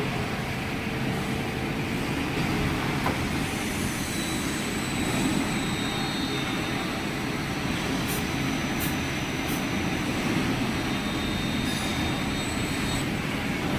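Metal lathe running while slotting a workpiece: a steady machine noise with faint high-pitched whines over it.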